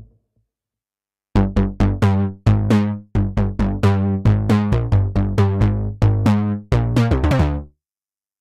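Sequential Pro 3 analog synthesizer playing a sequence of short, plucky bass notes, each starting bright and quickly going dull, about three to four a second. The notes start about a second in and stop shortly before the end.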